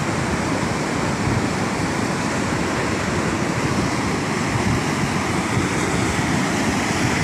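Steady rush of a lahar, a volcanic mudflow of water, ash and rock, pouring down the river channel.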